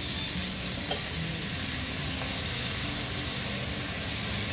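Chopped tomatoes sizzling in hot oil and spice masala in a stainless steel wok, a steady frying hiss.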